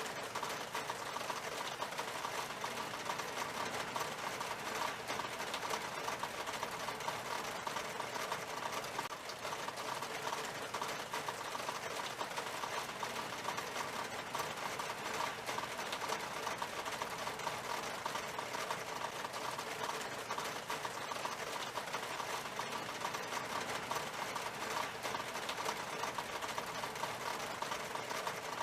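Steady rain on window glass: a dense, rapid ticking of drops over an even hiss, unchanging throughout.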